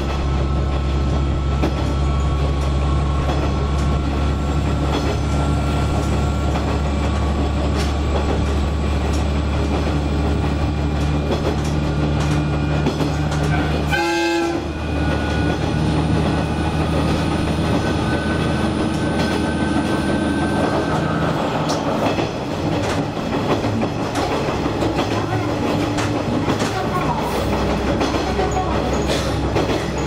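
Diesel railcar running on single track, heard from the cab: a steady engine drone with wheels clicking over rail joints. The engine drone drops away about two-thirds of the way through, leaving mainly wheel and track noise.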